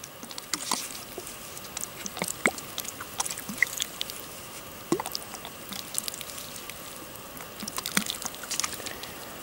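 Water poured from a plastic bottle over a handful of fresh mint leaves to rinse them: irregular drips and small splashes, some scattered clicks.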